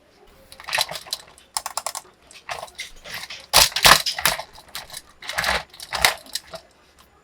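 Plastic and cardboard toy packaging being handled and opened: irregular bursts of clicking and crackling, loudest a little past three and a half seconds in.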